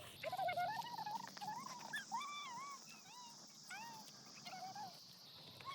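An animal's run of short, high whining calls, each rising and falling in pitch, about two or three a second, over a steady high hiss.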